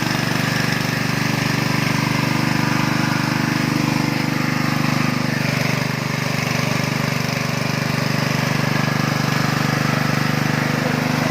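Animal-feed pellet mill running steadily on its trial run, its drive motor giving a constant, even hum with a fast regular pulse.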